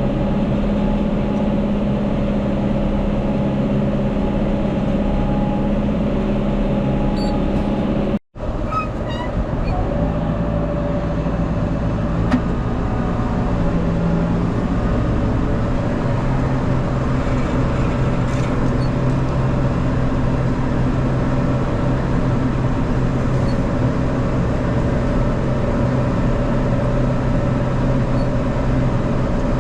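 Tractor engine running steadily under load, pulling a round baler. The sound cuts out abruptly for a moment about eight seconds in and resumes with a slightly different pitch.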